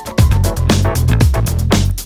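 Background music with a steady drum beat, funk/disco style.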